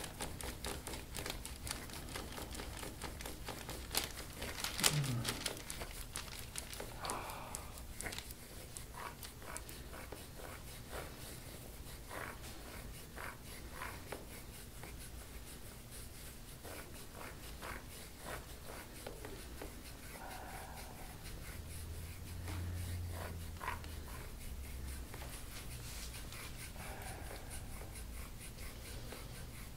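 Quiet hands-on sounds of deep-tissue massage: faint rubbing of hands on skin and clothing with many small clicks, and a few faint low vocal sounds from the patient, the first a short falling one about five seconds in.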